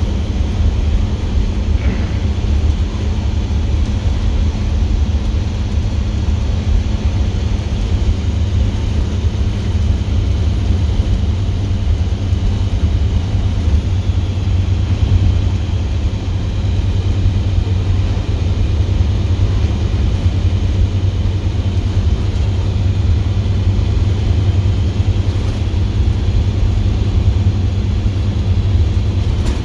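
Straight-piped International DT466E inline-six turbo diesel running steadily while the bus drives along, a deep, even exhaust drone heard from inside the cab.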